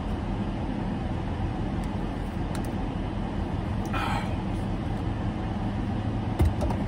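Steady hum of a parked car's air conditioning turned up high, heard inside the cabin. A short slurp from a plastic shaker bottle comes about four seconds in, and a soft knock follows near the end as the bottle is lowered.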